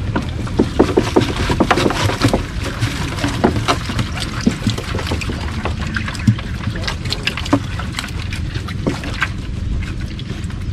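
Irregular knocks, clatter and splashing aboard a small wooden boat, over a steady low rumble.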